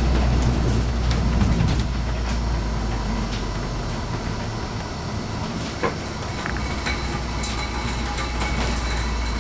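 Cabin ride noise of a Van Hool AGG300 double-articulated bus under way: a steady low engine drone that eases off for a couple of seconds mid-way and then picks up again, with light interior rattles and one sharp knock about two-thirds of the way through.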